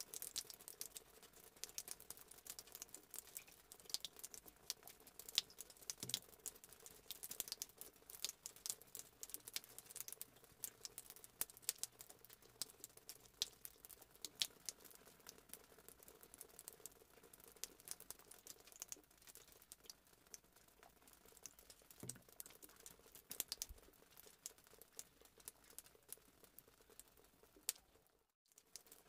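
Metal spoon beating eggs in a ceramic plate: quick, irregular clicks of the spoon against the plate, with a short break near the end.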